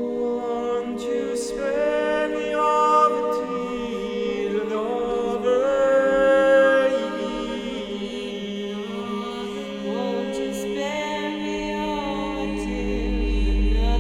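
Unaccompanied choral singing: several voices hold long, overlapping notes that slide slowly from pitch to pitch over a low drone.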